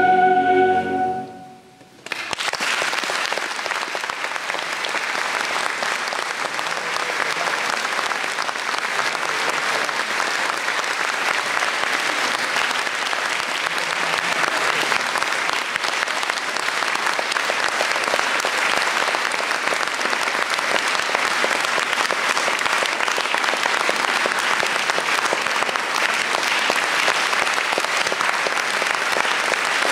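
A choir with piano and strings ends on a held chord that dies away about a second in. After a brief hush the audience breaks into applause, which goes on steadily.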